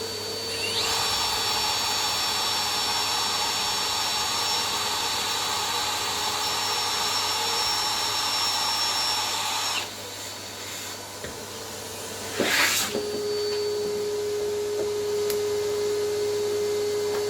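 An electric drill drilling a hole into the wall for a wall plug, starting about a second in and stopping after about nine seconds. A vacuum cleaner held under the hole runs steadily throughout, sucking up the drill dust, and there is a brief rattle a few seconds after the drilling stops.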